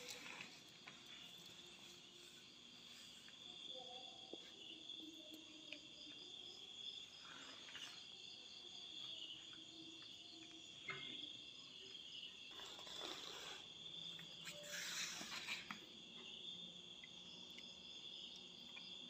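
Faint, steady, high-pitched insect chirring, with a few brief rustling sounds partway through.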